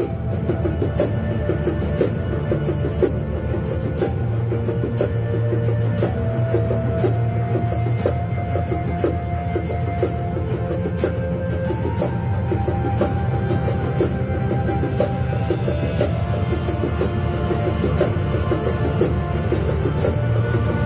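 Hand percussion played along to a recorded backing track with bass and melody, with a short, high scraping stroke repeating evenly about twice a second and drum hits scattered over it.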